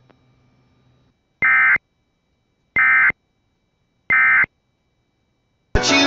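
Emergency Alert System end-of-message data bursts over a radio stream: three short, identical buzzy digital chirps about 1.3 s apart, signalling the end of the alert. Music starts near the end.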